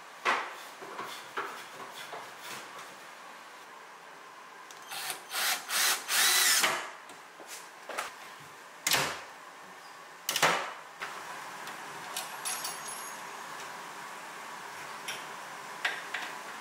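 Cabinet hardware being fitted to a wooden door. A cordless driver runs in a few short spurts for about two seconds midway, and there are sharp knocks and clicks of wood and small brass fittings, the two loudest a little later. Small fiddly ticks follow near the end.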